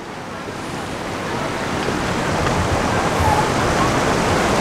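Fast, shallow hill stream rushing over rocks and around a person sitting in the current: a steady rush of water that grows louder over the first few seconds.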